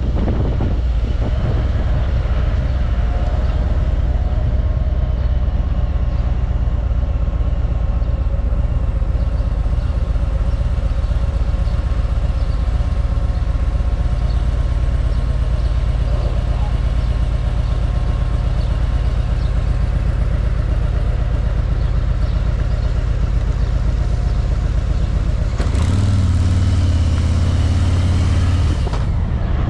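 Car driving: steady low engine and road rumble. Near the end comes a louder, hissier stretch of about three seconds that starts and stops abruptly.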